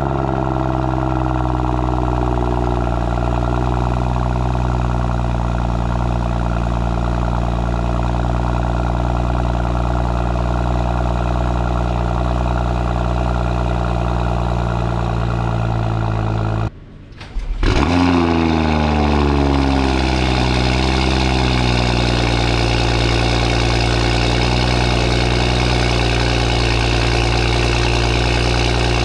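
BMW F30 335i's N55 turbocharged inline-six in cold-start high idle, its pitch slowly sinking as the idle settles, on the stock downpipe. About two-thirds of the way through the sound cuts off briefly, then the same engine, now on a catless downpipe and M Performance exhaust, fires up with a quick rev flare and drops back to a steady, raspier and louder high idle.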